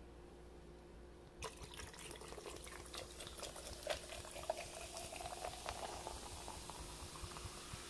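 Diet Dr Pepper poured from a can into a large glass jar. It starts about a second and a half in with a splash and a dense crackle of fizz, and a pitch rises slightly as the jar fills. The carbonation then goes on hissing.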